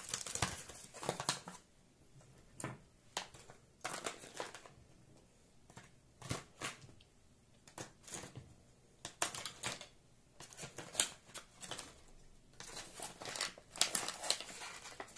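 Plastic packaging crinkling and rustling, with small clicks and taps, as diamond-painting tools and accessories are packed back into their bags; the handling comes and goes in short irregular spells.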